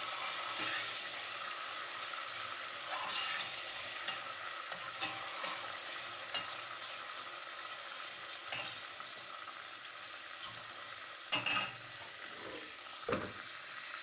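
Tomato paste sizzling as it fries in oil with a splash of water in a stainless steel pot, the sizzle slowly dying down. A metal spoon stirs and scrapes through it, with scattered clinks against the pot and a louder knock about eleven seconds in.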